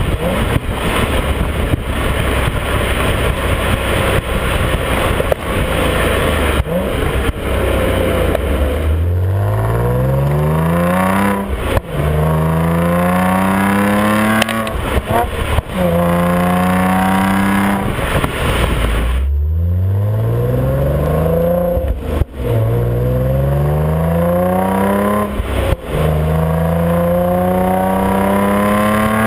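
Exhaust of a B8.5 Audi S4's supercharged 3.0-litre V6 through an APR exhaust, heard at the tailpipe while driving. It runs steadily with road and wind noise for the first third, then accelerates hard twice, the pitch rising through three gears each time with a short break at every upshift.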